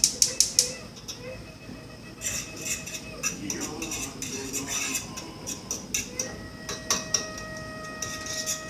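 Metal utensil clinking and scraping against a frying pan as potatoes are stirred in melted butter. Quick regular strokes for the first second, then scattered clinks.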